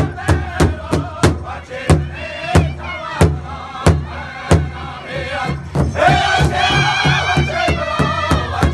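Powwow drum group singing together in high voices over a large shared drum struck in a steady unison beat. About six seconds in, the singing grows louder and climbs higher.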